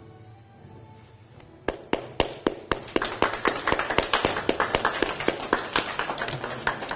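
A small audience applauding: a few separate claps come in under two seconds in, then thicken into steady clapping from several people that starts to fade at the very end. Soft background music plays underneath.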